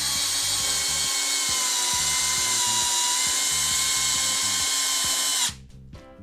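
Aimsak BL14T503 14 V cordless drill-driver in drill mode, with the clutch out of play, driving a long lag screw into very hard wood. The motor gives a loud, steady whine under load that starts abruptly, dips slightly in pitch midway, and cuts off shortly before the end.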